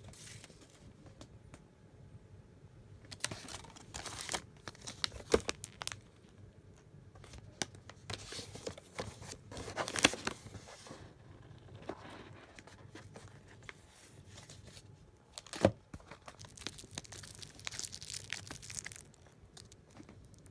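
Crinkling and rustling of paper and plastic treat packaging being handled, in irregular bursts with a few sharp taps and a single sharp knock about three-quarters of the way through.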